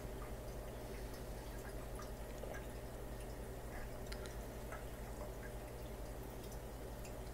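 Steady hum and trickling water of a running aquarium, with faint scattered drip-like ticks.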